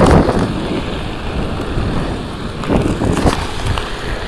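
Inline skate wheels rolling over pavement with a steady rumble, mixed with wind buffeting the microphone; it surges louder at the start and again about three seconds in.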